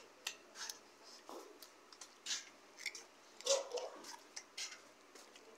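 A small child chewing a crunchy snack close to the microphone: a run of short, crisp crunches and mouth clicks, loudest about three and a half seconds in.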